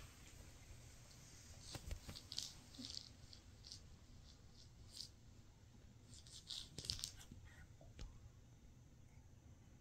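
Faint scattered scratches, rustles and soft taps of a kitten pawing a small fabric toy ball on bedding. There is a cluster about two seconds in and another about seven seconds in.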